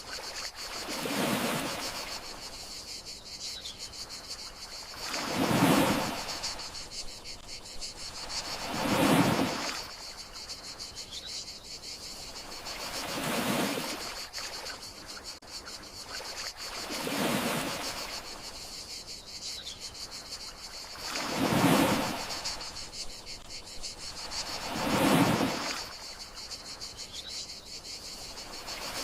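Gentle sea waves washing in, one soft surge about every four seconds, over a steady high chirring of crickets.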